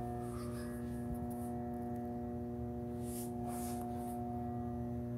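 Steady electrical hum with a stack of overtones from the magnetic ballast of a GE Power Flood 1000 1000-watt mercury vapor flood light running at full brightness; the fixture's loosely screwed housing adds to the vibration.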